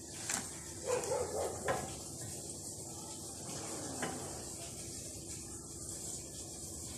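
A few short animal calls over a steady high hiss: a quick cluster about a second in and one short falling call about four seconds in.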